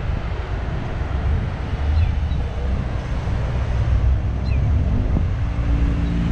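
Road traffic passing through an intersection, engines running over a low rumble, with wind buffeting the microphone. From about five seconds in, one vehicle's engine adds a steady hum.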